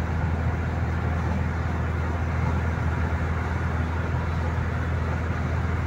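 Steady road noise inside a moving car's cabin: a low drone of tyres and engine at highway speed.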